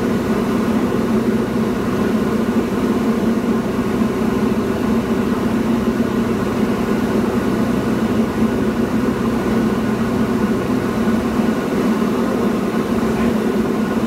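Diamond DA40 light aircraft's piston engine and propeller droning steadily, heard from inside the cockpit, at the even power of a final approach.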